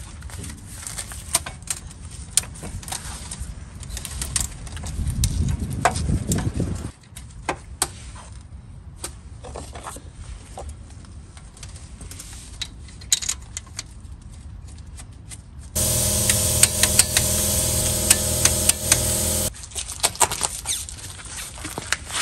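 Scattered metal clicks and clanks of a truck's front brake caliper and bracket being refitted by hand, with a low rumble about five seconds in. A power tool runs steadily for about four seconds in the second half.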